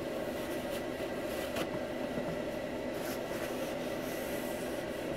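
Paper towel rubbed across a wooden workbench top, mopping up spilled water, with a few faint taps, over a steady background hum.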